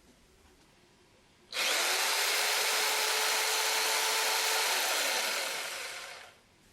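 An electric power tool switches on suddenly, runs at full speed with a steady whine for about three and a half seconds, then winds down to a stop over about a second.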